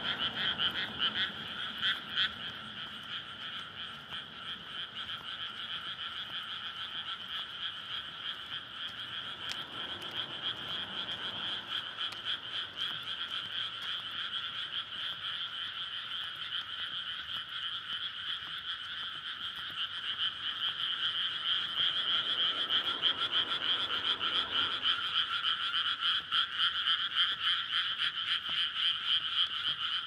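Dense breeding chorus of many frogs in a flooded rice paddy, males calling to attract mates: a continuous fast-pulsing rattle of overlapping calls that grows louder in the last third. A faint low rumble sits under it for a few seconds about two-thirds of the way in.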